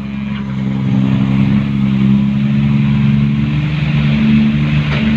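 Heavy diesel engine running steadily, growing a little louder after the first second.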